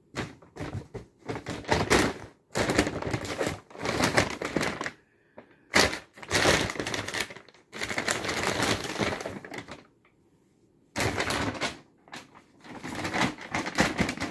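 Brown paper take-out bag crinkling and rustling in irregular bursts as a cat plays in and under it and a hand moves the paper, with short pauses about five seconds in and again near ten seconds.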